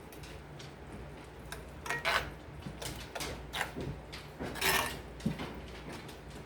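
A spoon knocking and scraping against a pan while stirring water into a thickening cream sauce, with a few sharp clinks, the loudest about two seconds in and again near five seconds in, over a steady low hum.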